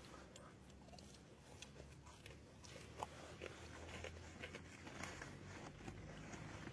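Near silence: faint room tone with a low hum and scattered small clicks.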